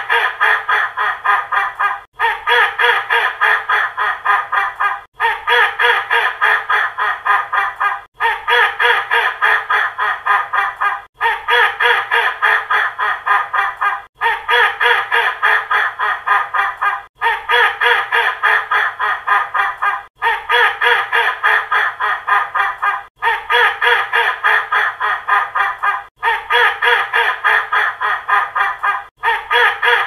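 A duck quacking angrily in a fast, unbroken run of harsh quacks. The same three-second stretch repeats over and over, each time after a brief gap.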